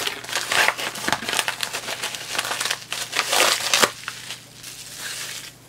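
Packaging crinkling and rustling in irregular strokes as it is unwrapped by hand. The rustling is loudest about three and a half seconds in and quieter near the end.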